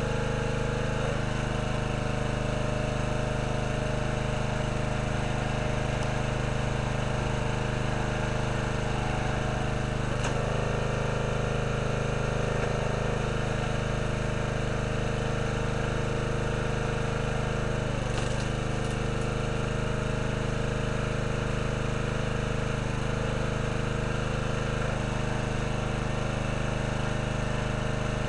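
Small gasoline engine of a hydraulic log splitter running steadily. Its note changes briefly about ten seconds in and again about eighteen seconds in, while the splitter works through logs.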